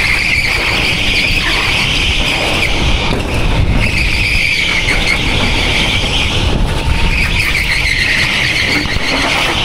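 Go-kart tyres squealing as the kart slides through corners on a smooth indoor track, in three long stretches with short breaks, over the kart's steady running rumble.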